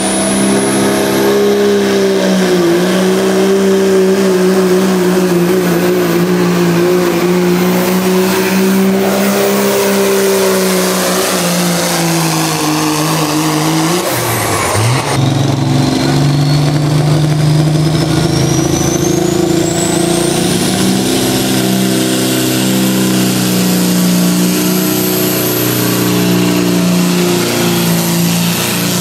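Diesel pickup truck engines held at full throttle while pulling a weighted sled, a loud steady drone with a high turbo whine above it. About halfway through the sound breaks off abruptly and another pull begins, its whine rising steadily in pitch.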